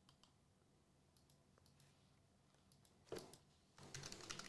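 Near silence with a few faint ticks, then computer keyboard typing near the end: a quick run of key clicks.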